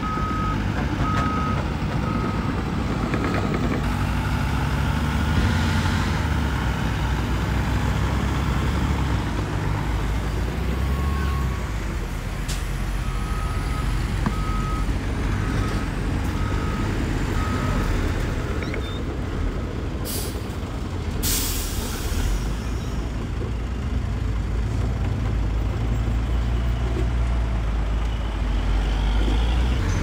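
Heavy diesel earthmoving machinery running with a steady low rumble, while a reversing alarm beeps a little over once a second at the start and again from about 13 to 18 seconds in. Two short, sharp hisses come about 20 and 21 seconds in.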